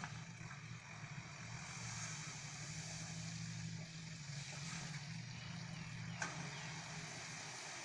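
Six-wheel dump truck's diesel engine running steadily as its hydraulic hoist raises the tipper bed to unload soil, the engine note strengthening for a few seconds in the middle.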